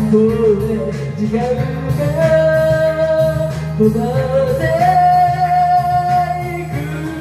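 Karaoke singing: a voice singing into a microphone over a backing track, holding a long note about two seconds in and another about five seconds in.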